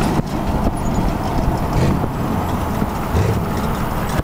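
1998 GMC race truck's engine running hard as the truck drives across the desert, its note rising and falling, rising again about three seconds in.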